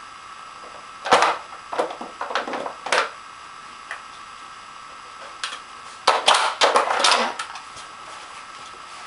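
Plastic Nina Ottosson Dog Twister puzzle toy clicking and clattering as a dog noses at its sliders and bone-shaped pegs, in two bursts of quick knocks: one about a second in, a denser one about six seconds in.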